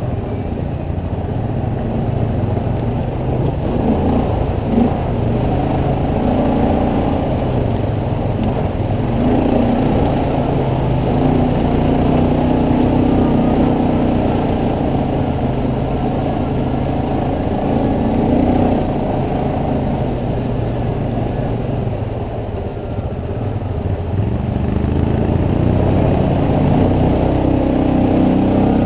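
ATV engine running continuously, its pitch rising and falling as the throttle opens and eases, with a short lull about two-thirds of the way through.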